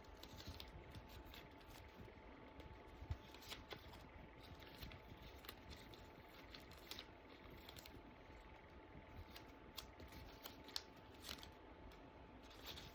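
Faint, scattered light clicks and taps of small wooden craft cutouts being handled and set down on a wooden board, over quiet room tone.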